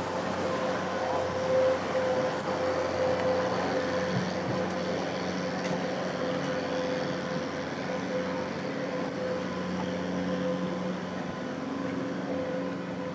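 Steady engine hum with a few held tones, over a constant outdoor background noise.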